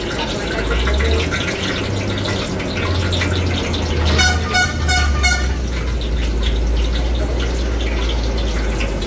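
Hot oil sizzling in a large iron kadhai, with drops of gram-flour batter frying in it. About four seconds in, a horn beeps four times in quick succession over a low steady hum.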